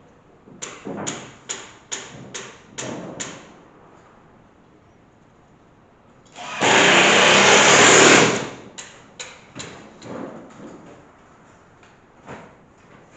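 An electric drill is handled with a quick series of sharp clicks, then run once for under two seconds with a loud rush of noise. More scattered clicks follow.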